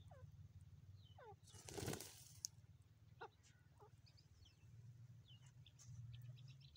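Grey francolin giving faint, short calls, several of them quick chirps that slide downward, over a low steady rumble. A brief rush of noise about two seconds in is the loudest sound.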